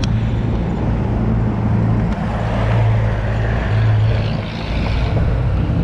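A vehicle's engine running steadily with a constant low hum, mixed with road traffic noise.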